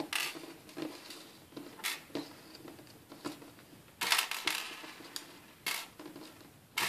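Irregular small clicks and scrapes of screws being worked out of the underside of a Sony Vaio VGN-N38E laptop and handled on its plastic-and-metal base, with a louder rattling scrape about four seconds in.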